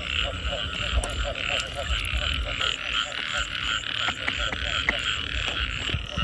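A chorus of frogs calling from a wet field, with a fast, evenly repeated croak overlapping higher pulsing calls. There are a few small splashes and clicks from a hand moving in shallow water.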